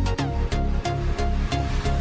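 Electronic background music with a steady beat, about three beats a second.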